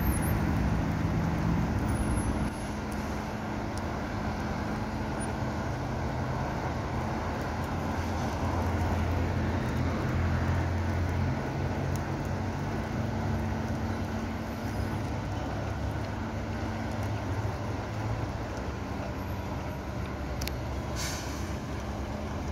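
Steady low hum of idling vehicles and street traffic, with a short hiss of air released near the end.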